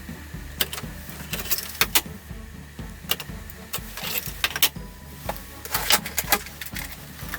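Irregular sharp clicks and clatter, like parts and tools being handled on a workbench, over a steady low hum.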